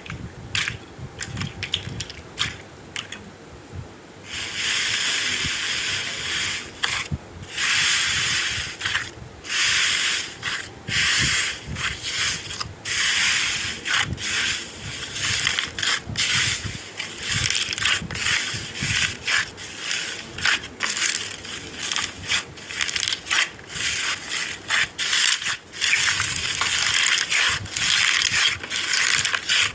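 Slime being squeezed and pressed, making repeated crackling, popping squelches. A few scattered clicks at first, then about four seconds in the bursts come thick and fast, one after another.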